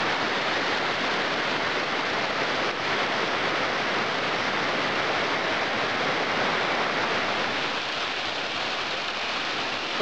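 Mountain stream in full snowmelt flow, its water rushing over rocky cascades in a steady, unbroken rush.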